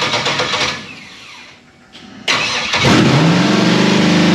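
LS V8 swapped into an old Ford F-150, running with no bodywork or hood around it. It runs briefly and dies away within the first second, then about two seconds in it fires again and settles into a loud, steady high idle, which the owner puts down to a vacuum leak.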